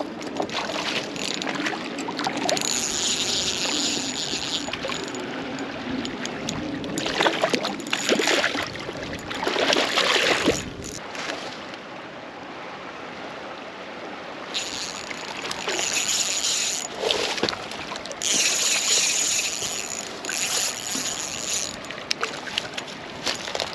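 Water of a spring-fed trout stream trickling and splashing, with louder splashy stretches a third of the way in and again past the middle.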